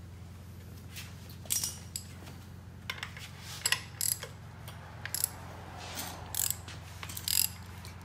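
Socket ratchet clicking in short, irregular runs as a Mitsubishi Evo 9's 4G63 engine is turned over by hand at the crankshaft bolt to check the timing marks after a new timing belt. A steady low hum runs underneath.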